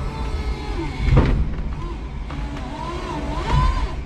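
5-ton electric forklift truck working with a load of OSB panels on its forks: a steady low rumble, a single clunk about a second in, and a whine that rises and falls in pitch near the end.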